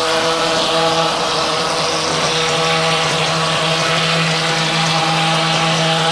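G54 plaster projection machine running steadily while gypsum plaster is sprayed from the gun onto a brick wall: a constant motor hum with a continuous hiss of air and plaster from the spray nozzle.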